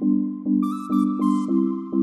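Background music: soft synthesizer chords pulsing about twice a second, with a few bright chime-like notes over them.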